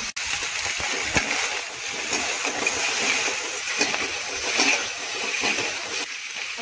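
Chopped pork sizzling in a hot metal wok, with a steady hiss. A metal slotted spatula stirs it and now and then taps and scrapes against the pan.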